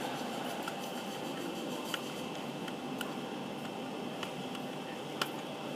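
Light handling noise with a few small clicks, the sharpest near the end, as wire connectors are worked loose from a controller board, over a steady background hum.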